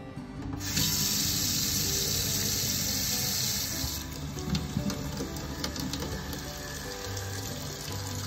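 Kitchen tap running, its stream of water splashing onto moringa leaves in a stainless steel colander as they are rinsed. It starts about a second in and softens a few seconds later.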